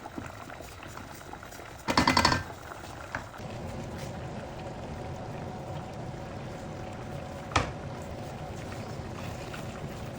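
Risotto simmering and bubbling in the pan, with a brief loud burst about two seconds in and a single sharp knock later on.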